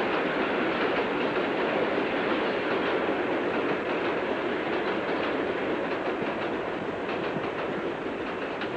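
Steady rushing noise with faint clattering in its later part; it drops away suddenly near the end.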